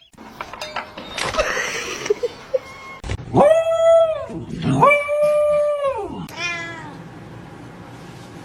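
A cat meowing: two long drawn-out yowls held at an even pitch, then a shorter, falling meow.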